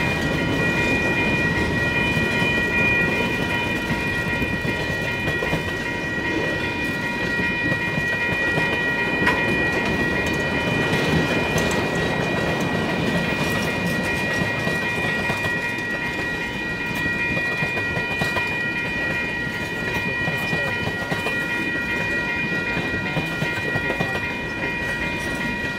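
Freight cars rolling steadily past a grade crossing, their wheels clacking over the rail joints, while the crossing's warning bell rings on as a steady high ringing over the rumble.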